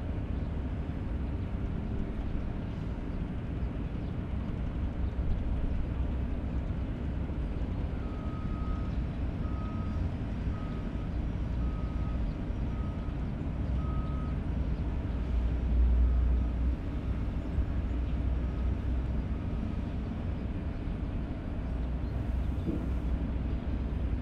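Low, steady rumble of jet aircraft engines. A vehicle's reversing alarm beeps about once a second for some twelve seconds in the middle, fading towards the end.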